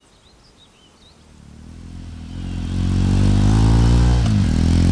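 Motorcycle engine coming up from faint to loud as it approaches, then running steadily. Its pitch drops briefly and picks up again about four seconds in. A few faint high chirps are heard at the very start.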